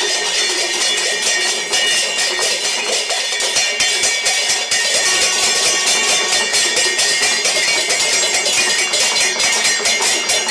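Temple bells and hand cymbals clanging fast and steadily, the ringing that accompanies an aarti.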